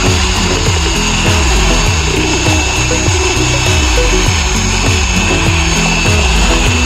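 Corded electric drill running steadily, spinning a bent rebar mixing paddle through wet mortar in a plastic bucket, with a steady high motor whine. Background music with a repeating bass beat plays over it.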